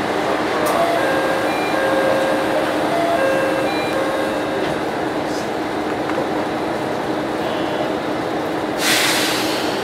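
Diesel railcar's engine idling steadily while the train stands at the platform. A run of short high tones sounds in the first half, and near the end comes a sharp burst of air hiss.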